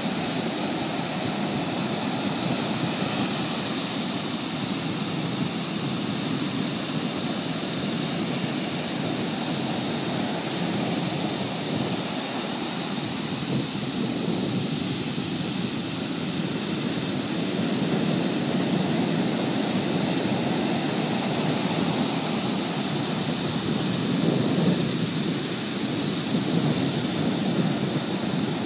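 Pacific Ocean surf: a steady roar of breaking waves that swells a little in the second half and peaks about 24 seconds in.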